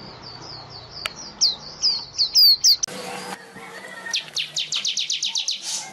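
Manyar (weaver bird) singing: a run of short, high, falling chirps, then an abrupt splice in the recording and a fast rattling series of about a dozen chirps near the end. A single sharp click about a second in.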